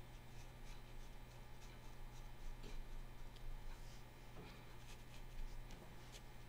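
Faint, soft taps and scratches of a small watercolor brush dabbing short dots and dashes of paint onto cold-press watercolor paper, over a steady low hum.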